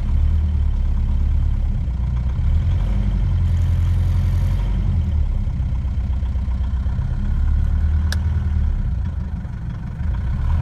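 Four-cylinder diesel engine of a 1982 Hindustan Ambassador idling, heard from inside the cabin as a steady low throb. A single click comes about eight seconds in.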